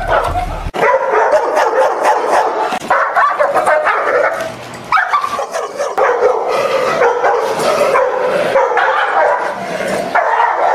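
A dog barking over and over, with hardly a pause.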